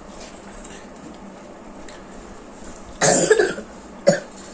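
A person coughing twice near the end, the second cough shorter than the first.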